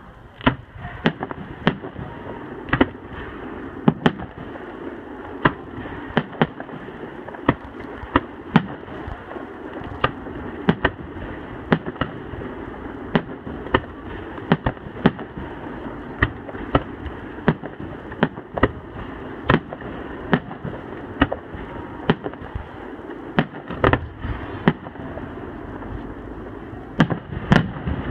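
Fireworks display: aerial shells bursting in the sky, sharp bangs at irregular intervals, about one or two a second, over a steady background noise.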